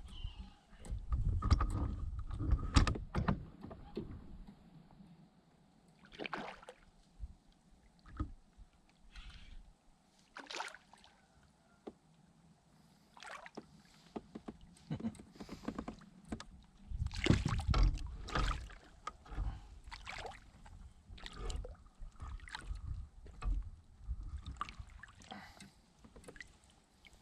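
Irregular knocks and clatters on a fishing kayak, with water moving against the hull. Low rumbles come about a second in and again around the middle.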